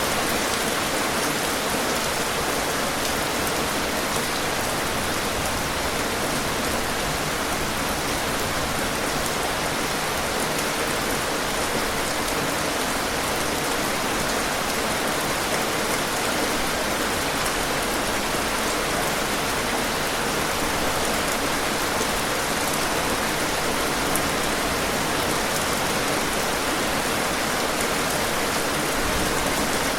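Heavy rain falling steadily: a dense, even hiss of many drops that neither swells nor breaks.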